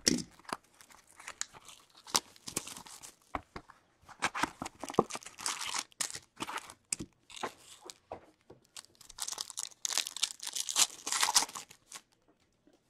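An SPX hockey card box being slit open and foil card packs pulled out and torn open: irregular bursts of crinkling and tearing plastic foil with small clicks, stopping near the end.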